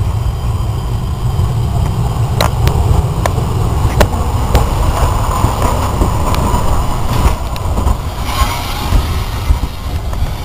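Steam locomotive and tender passing at close range: a heavy low rumble with scattered sharp metallic clicks from the wheels on the track. A higher rushing noise joins about eight seconds in.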